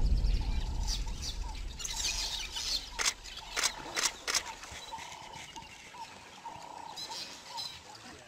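Short bird calls repeating in the background, with a cluster of sharp splashes about three to four seconds in as a wildebeest lunges through shallow river water. Music fades out in the first second.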